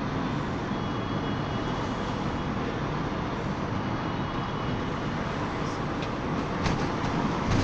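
Cabin noise of a Mercedes-Benz Sprinter minibus on the move: a steady mix of engine and road noise, with a couple of short clicks near the end.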